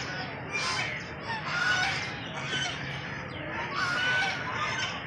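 Flock of domestic ducks and geese calling: many short, overlapping high-pitched calls.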